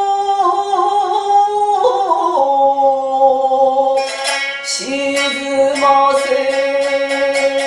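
A woman's long held sung note, wavering in pitch and shifting about two seconds in, followed from about four seconds in by a biwa struck with its plectrum in sharp strokes, two to three a second, over steady ringing tones.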